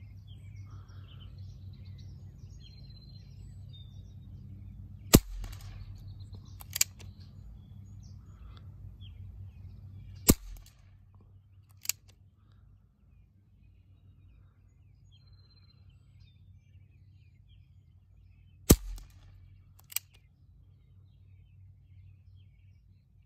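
Barra 1858 CO2 BB revolver firing three shots of .177 steel BBs, sharp pops about five, ten and nineteen seconds in. Each shot is followed a second or so later by a fainter click. Faint birds chirp over a low steady rumble that drops away about ten seconds in.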